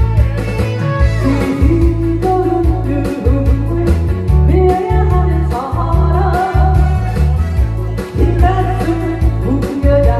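A woman singing a Korean trot song through a headset microphone over loud amplified backing music with a steady bass beat.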